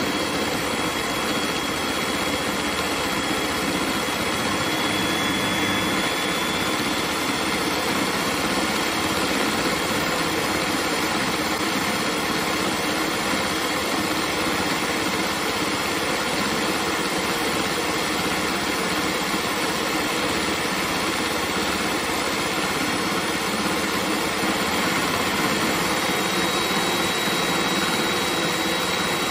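Electric hand mixer running steadily, its twin wire beaters whisking a runny egg mixture into a foam in a bowl.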